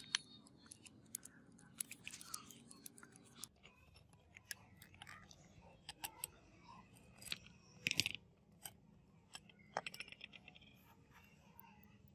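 Small metal parts of an old gun's lock mechanism clicking and scraping as they are handled and fitted together by hand: irregular sharp clicks, with the loudest cluster about two-thirds of the way in.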